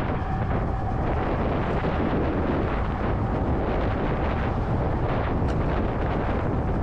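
Steady wind buffeting on a mask-mounted GoPro 9's microphone while riding an electric moped at speed: a constant, heavy low rumble with no break.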